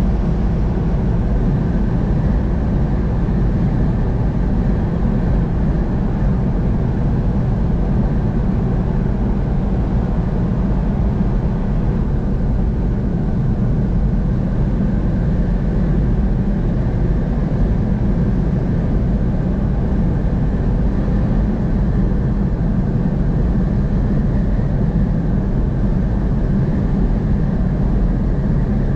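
Steady road noise of a vehicle cruising on a highway, mostly low in pitch, with no changes.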